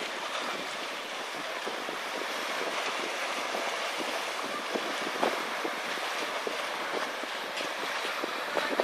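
Steady rush of wind and sea water, with scattered small splashes and ticks.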